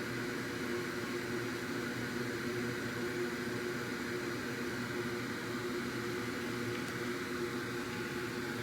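Steady whir of a small electric fan on the workbench, with a low hum under it and no change throughout.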